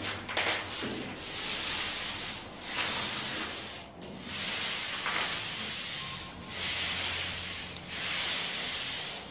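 Paint roller loaded with emulsion paint rolling up and down a wall: a rhythmic hissing swish, about six strokes with short breaks between them.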